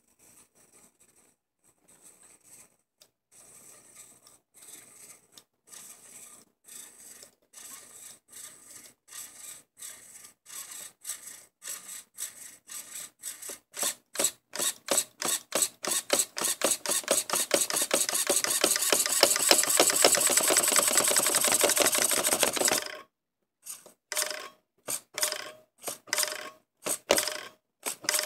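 K-Power M0261 RC servo's motor and gear train whirring as it sweeps its horn back and forth. The strokes get louder and quicker until they merge into a continuous whirring, which cuts off suddenly, followed by a few separate sweeps near the end.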